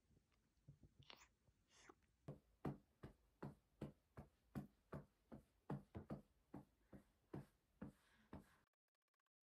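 Hand patting a baby's back in a steady rhythm, about three soft pats a second, burping the baby after a bottle feed; the patting cuts off abruptly near the end.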